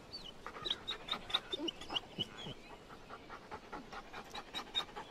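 A Belgian Malinois service dog panting quickly and quietly, with a run of short high whining squeaks mixed in.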